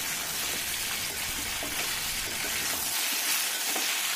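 Mixed vegetables and shallots stir-frying in oil in a stainless steel kadai: a steady sizzle, with a spatula scraping the pan now and then.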